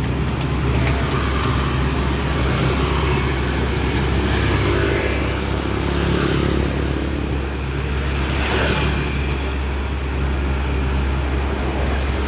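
Heavy diesel engine of earth-moving machinery running steadily, a continuous low drone, with a brief swell of noise about eight and a half seconds in.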